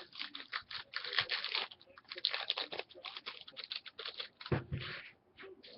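Quick clicking and crinkling of sports card packs and cards being handled, with one duller, deeper thump about four and a half seconds in.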